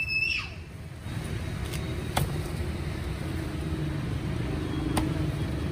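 Heavy cleaver chopping crispy-skinned roast pork hock on a thick wooden chopping block: a few sharp separate chops, the clearest about two seconds in and near the end. Steady traffic rumble runs underneath, and a short high whistle-like tone sounds right at the start.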